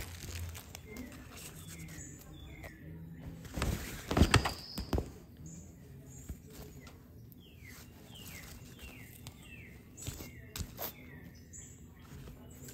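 Short, falling bird-like chirps repeated in two runs, the second longer, over the crinkle and rustle of a fabric pop-up cat tunnel; the loudest moment is a burst of tunnel rustling about four seconds in as the cat moves inside it.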